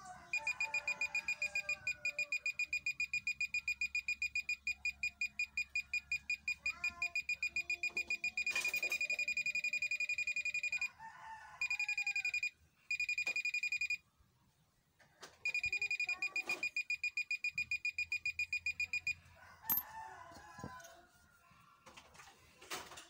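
GP-Pointer pinpointer metal detector's buzzer sounding a high electronic beep, pulsing about five times a second as a coin is held near it, running together into a steady tone about eight seconds in, then stopping and starting in shorter runs before it falls silent near the end. The beeping is the detector's alert that metal is close to its probe.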